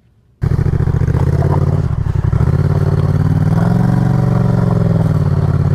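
After a brief near silence, a motorcycle engine cuts in abruptly about half a second in, pulling up a rough dirt trail; its pitch rises a little around the middle and then eases back.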